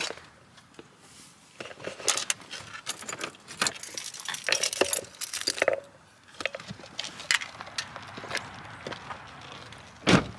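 Keys jangling with clicks and rustling as things are handled at the open door of a parked car, then a car door shuts with one loud thump near the end.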